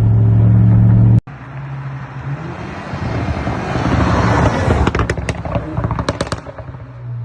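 Alfa Romeo Giulia Veloce's Stage 1 tuned turbocharged four-cylinder running at steady revs, then, after an abrupt cut, revving up to a peak about four seconds in. As it comes off the throttle, a quick run of sharp exhaust pops and crackles follows between about five and six and a half seconds in, and it settles back to a low steady note.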